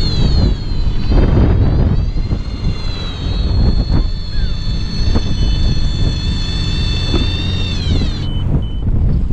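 Electric fishing reel's motor whining steadily as it winds in line, its pitch dropping as it gets going and again just before it stops, about eight seconds in. Under it runs a heavy low rumble of wind on the microphone.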